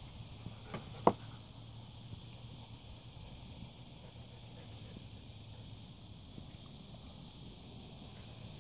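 Steady high-pitched insect chirring in the open air, with a single sharp knock about a second in.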